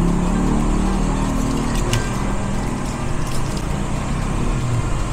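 Steady low background rumble, with a single light click about two seconds in.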